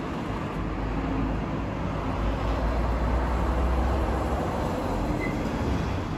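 Outdoor background noise: a steady hiss with a low rumble that grows stronger about two seconds in and eases toward the end.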